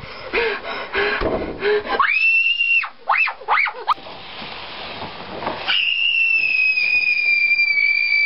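A girl screaming in terror: a short high scream about two seconds in, a couple of wavering shrieks, then one long high-pitched scream held through the last few seconds.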